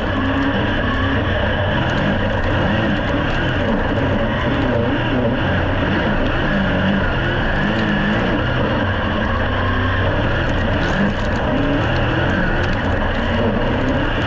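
Dirt-track super saloon's V8 engine heard from inside the cockpit at racing speed, loud and steady, its revs rising and falling through the corners.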